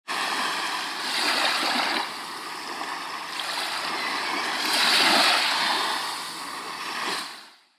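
Sea waves washing in, swelling about a second in and more loudly about five seconds in, then fading out quickly near the end.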